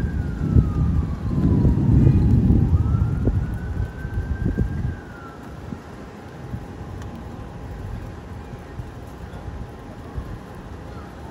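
Emergency vehicle siren wailing, its pitch sweeping slowly up and down twice before fading out about halfway through. Under it a loud low rumble lasts for the first five seconds, then dies down.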